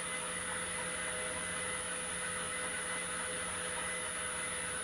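The open-channel flume's water pumps running: a steady mechanical hum with several constant tones over an even hiss.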